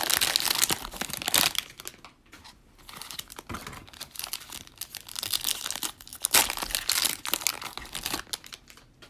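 Cellophane wrapper of a trading-card cello pack crinkling and tearing as it is opened by hand, with bursts of crackle for most of the time and a lull about two seconds in.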